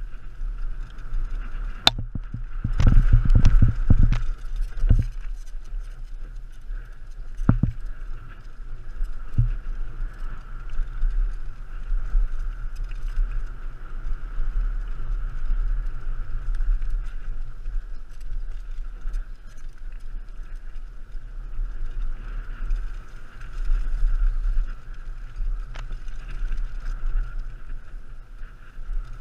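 Mountain bike riding fast down a dirt singletrack, heard from a helmet-mounted camera: steady wind rush on the microphone with the rattle of tyres and frame over the trail. A cluster of hard knocks about two to five seconds in, and single knocks near eight and ten seconds, as the bike hits bumps.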